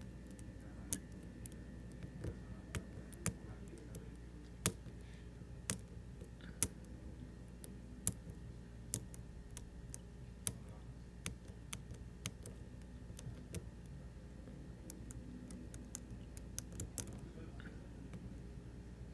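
Small, irregular metallic clicks of a lock pick and tension tool working inside a Medeco Biaxial lock cylinder as the pins are rotated, trying to bring pin 2 out of a false gate to its true gate. A faint low hum runs underneath.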